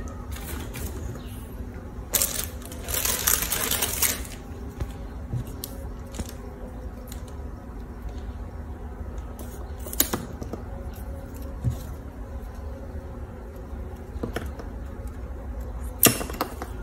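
Small scissors snipping plastic drinking straws into short lengths: a few sharp snips spaced seconds apart, the clearest near the end, with a stretch of plastic handling and rustling about two to four seconds in.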